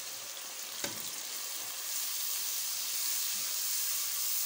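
Oil sizzling in a kadhai as ground spices fry in the onion, tomato and yogurt masala, with one sharp tap of the spatula a little under a second in. The sizzle grows louder from about two seconds in as the masala is stirred.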